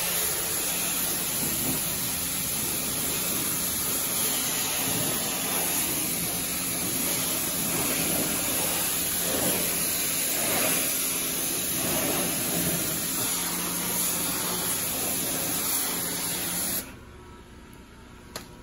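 Pressure-washer wand spraying water onto a car's wheel and tyre: a steady hiss of spray that cuts off suddenly near the end.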